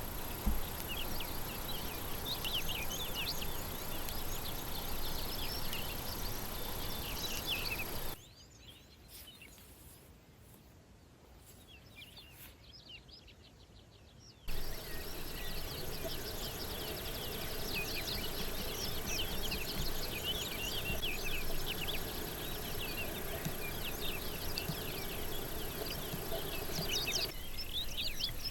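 Wild birds singing, a dense chorus of short chirps and trills over a steady outdoor hiss. About a third of the way in the birdsong cuts out to a faint hush for about six seconds, then resumes just as abruptly.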